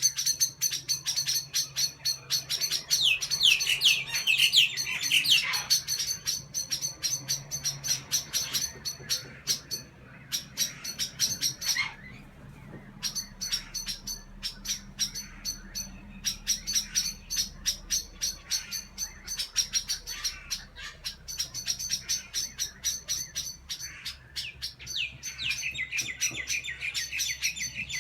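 Small black birds giving a rapid, almost unbroken chattering alarm call, many short high chips a second, as they mob a kookaburra. The chatter dips briefly about halfway through.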